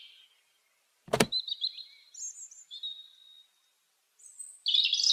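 Robin calling in short, high chirps and a briefly held whistled note, ending in a loud run of falling chirps. A single sharp click comes about a second in, and there are gaps of near silence between the calls.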